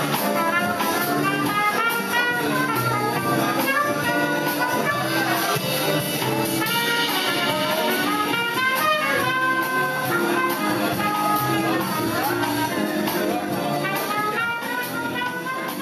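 Small jazz combo playing, a trumpet carrying the melody over piano, upright bass and drums.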